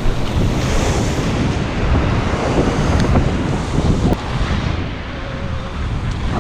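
Wind buffeting the microphone in strong gusts over the steady wash of breaking surf.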